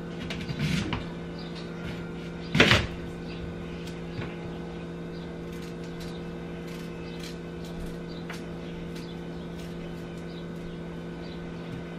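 Kitchen knife slicing rounds off a peeled yam onto a plastic cutting board: one loud knock about two and a half seconds in, and light taps and clicks throughout, over a steady low hum.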